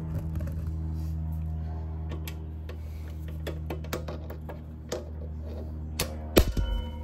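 Irregular clicks and light taps of hand tools on metal, with a few sharper, louder knocks about six seconds in, over a steady low hum.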